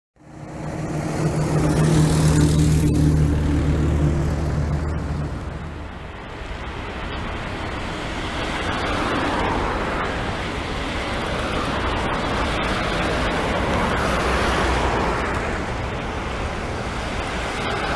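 A steady low engine hum from nearby road traffic for the first six seconds, then the broad, swelling rush of a Boeing 787-8 Dreamliner's jet engines growing louder as the airliner comes in on final approach to land.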